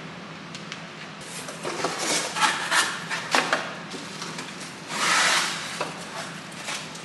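Cardboard and plastic packaging rustling and scraping as a boxed cookware set is unpacked by hand, in short bursts with a few light knocks.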